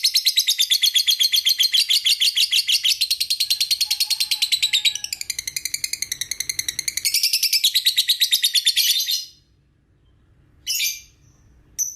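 Young lovebird chattering in a long, rapid run of shrill chirps, about ten a second, that stops about nine seconds in. A short burst of chirping follows near the end.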